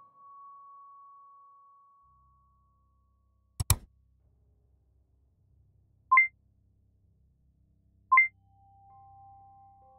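Electronic sound effects: a steady electronic tone fading out over the first two seconds, a single sharp click about three and a half seconds in, then two short bright instant-message notification pings about two seconds apart over a faint low hum. Soft synth tones come in near the end.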